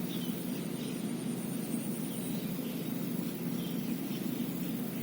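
Outdoor ambience: a steady low rushing noise with faint, scattered bird chirps above it.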